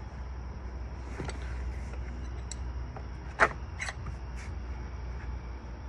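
Handling noises from archery target parts: a few light clicks and knocks, the sharpest about three and a half seconds in, with a little rustling, over a steady low hum.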